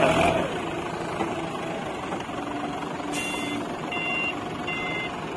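HELI 3.5-tonne forklift's engine running steadily; about three seconds in its reversing alarm starts beeping, a repeating high beep just under once a second.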